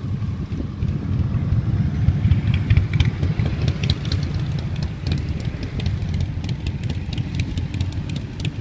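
Engine of an amphibious quad bike (quad bike/jet ski) running with a steady low rumble, a little louder two to three seconds in.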